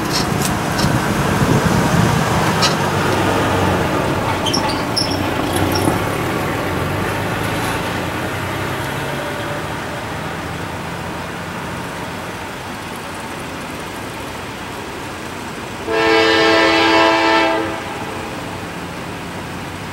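Approaching Norfolk Southern diesel locomotive sounding one long air-horn blast of several tones together, about a second and a half, near the end. Before it, a low rumble with a steady hum fades away over the first half.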